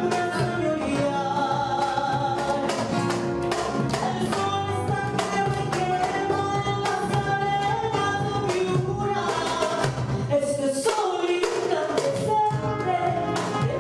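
Live tondero music: a woman singing long held lines over guitar and hand-drum accompaniment with frequent percussive strokes.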